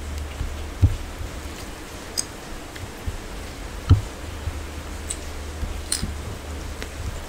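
Hand-eating sounds: fingers mixing rice and curry on steel plates and chewing, with scattered small clicks and two dull thumps, about a second in and about four seconds in, over a steady low hum.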